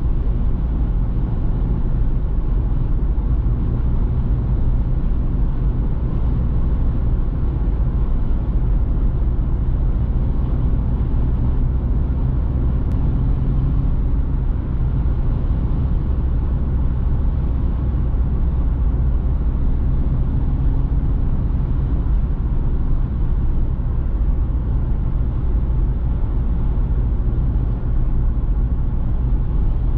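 Interior sound of a Citroën C3 Picasso's 1.6 HDi diesel cruising at expressway speed: a steady low engine drone mixed with constant road and wind noise.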